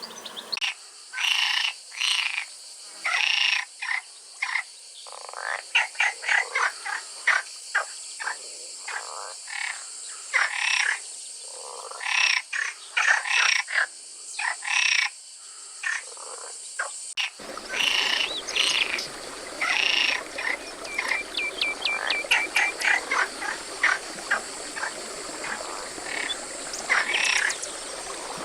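A chorus of frogs calling, many short croaks repeating and overlapping. About two-thirds of the way through, the background shifts abruptly to a fuller, noisier ambience and the calling carries on.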